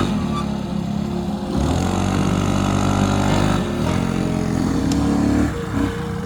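Motor vehicle engine running and revving, its pitch climbing and dropping several times.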